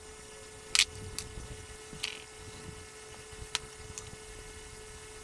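A few sharp clicks and taps of PVC pipe fittings being handled and set down on a steel table while primer is daubed on them, the loudest about a second in, over a faint steady hum.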